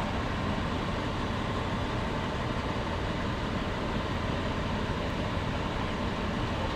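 Steady, unchanging low vehicle engine hum.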